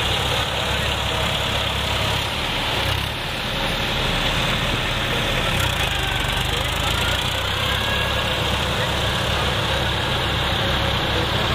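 Massey Ferguson 246 tractor's diesel engine running steadily as the tractor works through a flooded, muddy paddy field, with crowd voices underneath.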